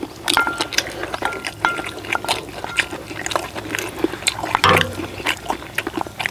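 Wet chewing and slurping with spoons and chopsticks clicking against stainless-steel bowls. A few strikes leave a brief metallic ring. A short vocal sound from one of the eaters comes about four and a half seconds in.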